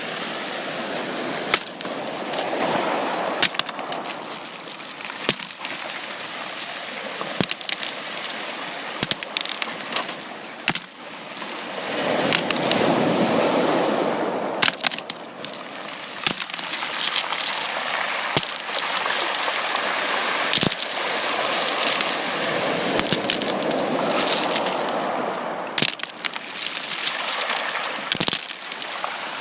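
Sea waves washing onto a beach, surging three times about ten seconds apart, with many sharp clicks and crackles throughout.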